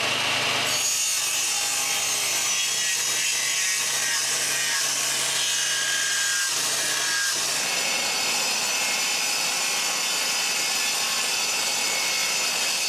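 Power tool cutting into a wooden floor plank, running steadily throughout; a low motor hum under it drops away about seven seconds in.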